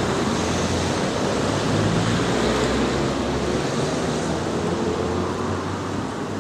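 Wind blowing across the microphone: a steady rushing hiss with a low rumble that drops away about three and a half seconds in.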